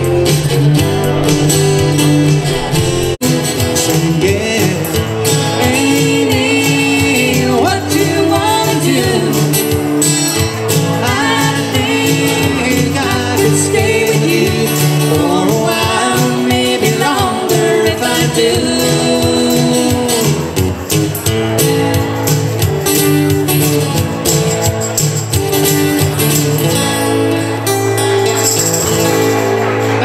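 A live song from a vocal and guitar duo: singing into microphones over an amplified acoustic guitar.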